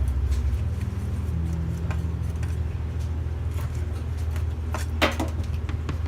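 Light metallic clinks and taps of kitchen utensils, the sharpest about five seconds in, over steady low background music.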